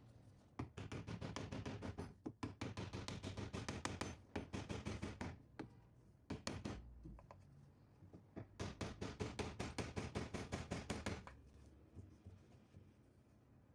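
Rapid runs of sharp knocks, about nine or ten a second, in three long bursts with a short one between.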